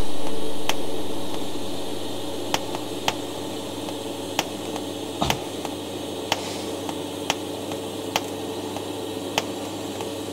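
Arc welding on a stainless steel exhaust pipe: a steady hiss and electrical hum from the arc, broken by irregular sharp crackles and pops.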